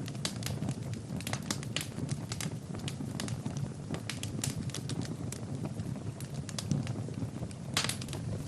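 Wood fire burning in a fireplace, crackling and popping at irregular intervals over a low steady rumble, with a denser run of pops near the end.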